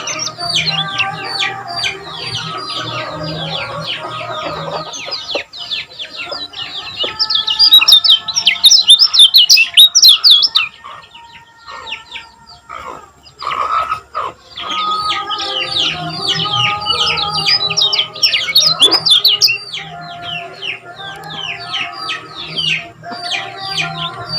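Kecial kuning singing a fast chattering song: rapid runs of short, high, downward-sweeping chirps, loudest in a burst about a third of the way in, pausing briefly past the middle, then starting again.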